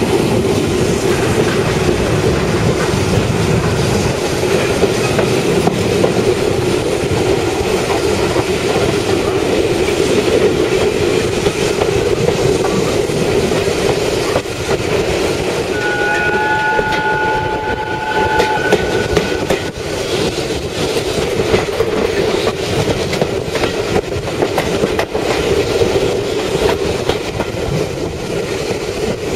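Steam-hauled train running steadily: a continuous rumble with the clickety-clack of wheels over rail joints. About halfway through, a short whistle sounds for a few seconds.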